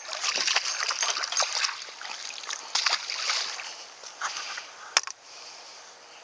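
A hooked trout splashing at the water's surface against the pond edge, busiest in the first three seconds and then easing off. A single sharp click about five seconds in.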